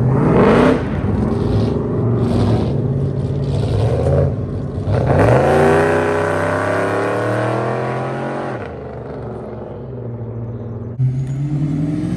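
Car engines accelerating: a sharp rev about half a second in, then a second car pulling away about five seconds in, its pitch climbing and then holding steady before it fades. Another engine comes in abruptly near the end.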